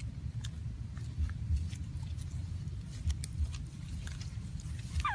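Macaque chewing food, with scattered small crunches and clicks over a low rumble; right at the end a short squeal falling in pitch.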